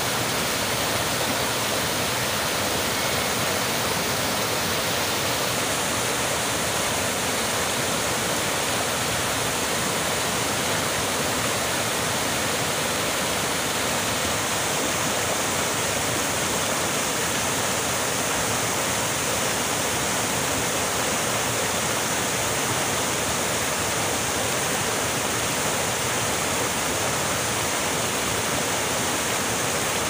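Fast mountain stream rushing over boulders in white-water rapids and small cascades: a steady, unbroken rush of water.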